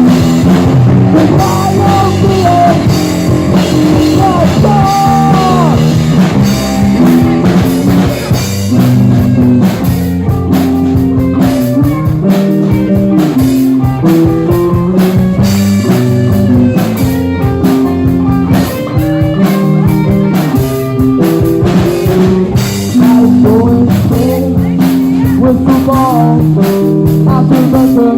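Live rock band playing a blues-tinged rock song: electric guitar with bending notes over bass and drum kit.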